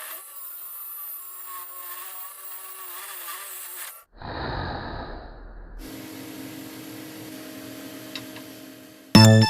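Electric drill running and boring into wood with a homemade flat (spade) bit ground from a car engine valve, in short abruptly cut stretches; the coarsest, loudest cutting comes about four to six seconds in. A loud knock near the end.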